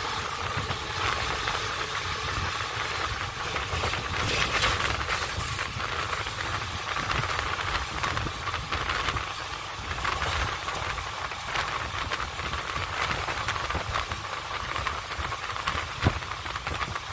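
Moving passenger train heard through an open window: the steady rumble and clatter of its wheels on the track, with rattles and rushing air. There is one sharp knock about 16 seconds in.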